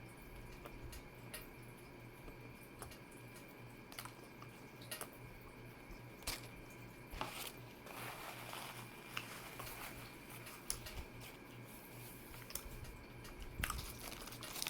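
Quiet close-up chewing, with soft wet mouth clicks and smacks at irregular intervals over a faint steady hum.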